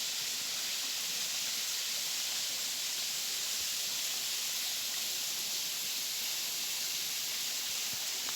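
Waterfall about 25 metres high, its falling water making a steady, even hiss.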